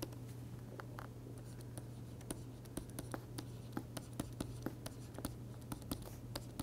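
Stylus tapping and scratching on a pen tablet as capital letters are written: a quick, uneven run of small clicks from about a second in, over a steady low hum.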